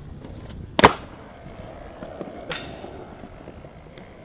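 Skateboard on concrete: a loud clack of the board hitting the ledge or ground about a second in, then the wheels rolling steadily, with a second sharp hit around two and a half seconds in that trails off in a hiss.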